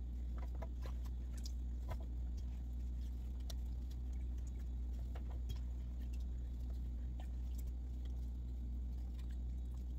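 Scattered light clicks and taps as apple slices are handled and laid onto metal trays, over a steady low hum.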